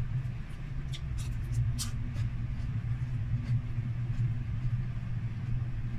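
Crispy chicharon bulaklak (deep-fried pork intestine) being chewed, a few short sharp crunches over a steady low hum.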